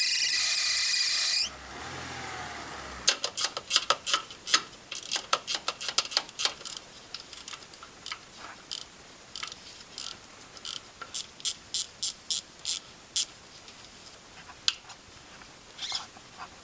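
A loose alternator belt squealing loudly on a running engine for about a second and a half, then cutting off, with a fainter whine falling away after it. After that comes a long run of sharp clicks and knocks, a few a second.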